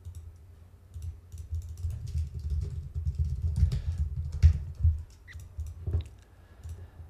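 Typing on a computer keyboard: a run of irregular keystrokes, each a short click with a low thud.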